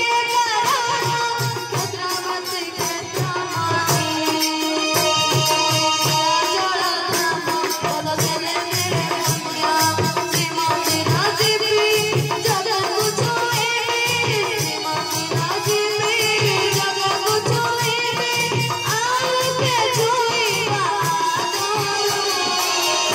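Live Odia devotional bhajan: a boy singing into a microphone, accompanied by an electronic keyboard, a steadily beating hand drum and rattling percussion.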